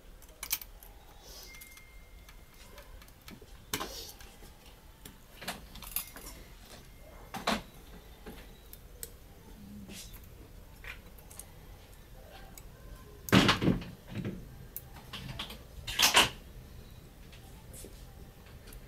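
Scattered small clicks and taps of metal tweezers and fingers working on the plastic and metal parts of a partly dismantled Canon EOS 60D camera body, with two louder knocks about two thirds of the way through.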